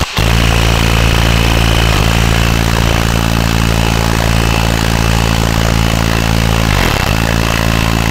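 Makita 18V cordless impact driver hammering steadily on a tight rocker-cover nut, working to break it loose.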